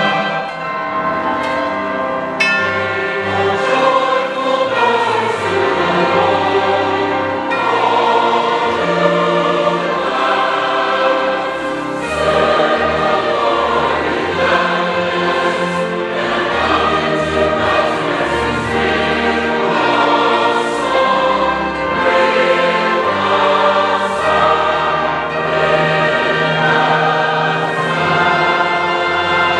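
Large mixed choir singing with orchestral accompaniment, held steadily without a break.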